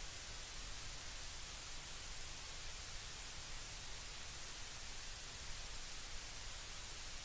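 Steady hiss of static with no other sound: the noise floor of the recording while the audio feed carries no speech.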